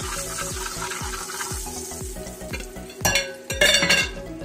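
Turmeric frying in hot oil in a frying pan, sizzling steadily as a utensil stirs and scrapes it around the pan. Louder scraping clatters come about three seconds in.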